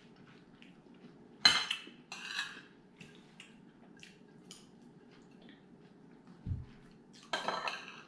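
Metal forks and spoons clinking and scraping on dinner plates while eating, with a sharp clink about a second and a half in, a softer one shortly after, and a cluster of clinks near the end, between scattered light ticks. A short low thump comes just before the final clinks.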